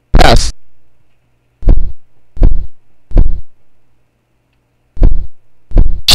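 Six heavy, deep booming thumps at uneven spacing, each dying away quickly, with a faint low hum between them.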